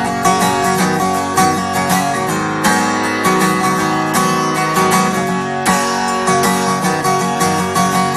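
Acoustic guitar strummed in a steady rhythm: the opening bars of a song, with no singing yet.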